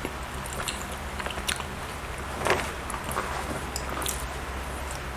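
A person biting and chewing soft cake or bread close to the microphone, with scattered small wet mouth clicks over a steady low hum.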